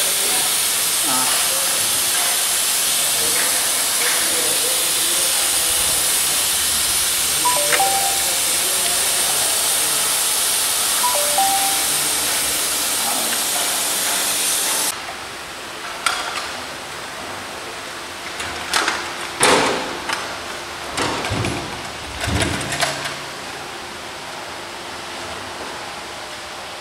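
Workshop background noise: a loud steady hiss that cuts off suddenly about halfway through, followed by quieter room sound with a handful of clunks and knocks.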